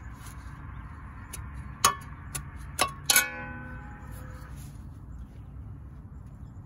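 Metal garden spade digging into soil at the edge of a brick border: four sharp knocks in quick succession, the last and loudest leaving a metallic ring that fades over about a second.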